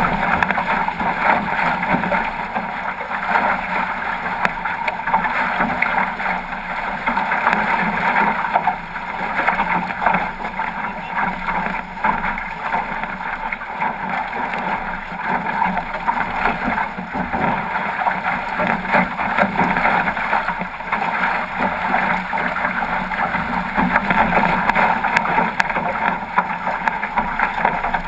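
Water rushing and splashing along the hull of a 505 racing dinghy sailing fast through chop, mixed with wind buffeting the microphone: a steady rush of noise.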